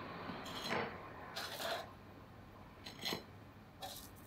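A nylon spatula sliding under baked buns on a foil-lined baking tray: a few brief, soft scrapes and crinkles of the aluminium foil.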